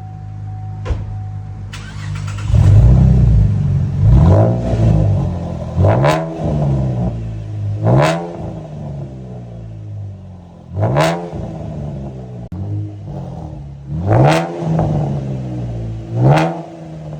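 Car with a straight-pipe exhaust, its mufflers removed, idling and then revved in several quick blips. Each rev rises sharply and drops back to idle.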